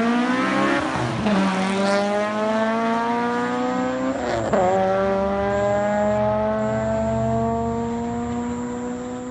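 Acura RSX's four-cylinder engine pulling hard through the gears. Its pitch climbs, drops at a gear change about a second in, climbs more slowly, drops again at a second shift about four seconds in, then climbs steadily.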